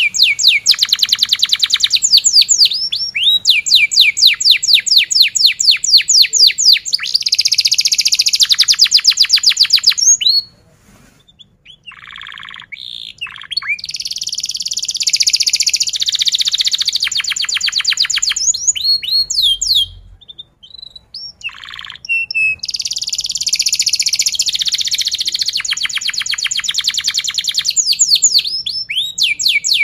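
Yellow domestic canary singing in long, fast, rolling trills of repeated high notes. Twice the song breaks off into a few short calls before the trilling resumes.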